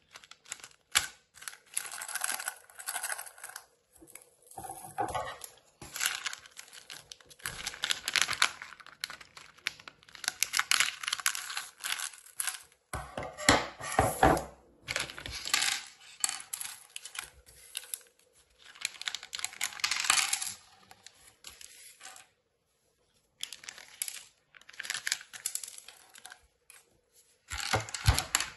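A crinkly plastic LEGO minifigure blind bag is rustled and torn open, and the small hard plastic parts rattle and click against each other and the table. The sound comes in irregular bursts separated by short pauses.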